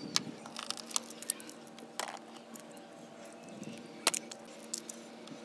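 Razor blade scraping old window adhesive and bits of shattered glass from a car's rear quarter window frame: irregular sharp clicks and ticks of glass fragments breaking loose.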